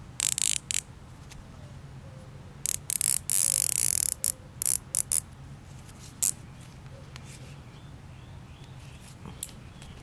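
Nylon zip tie being pulled through its locking head, ratcheting in several short bursts, the longest about a second.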